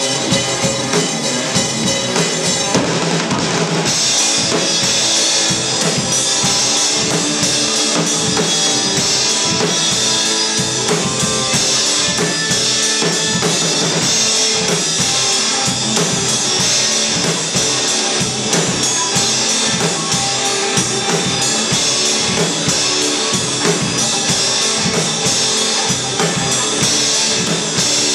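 Live rock band playing: two electric guitars over a drum kit, with bass drum and snare hits. Cymbals come in about four seconds in and keep going.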